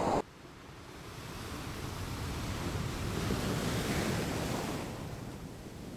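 Ocean surf: a wave washes in, its rush building over about three seconds and then fading, with some wind on the microphone.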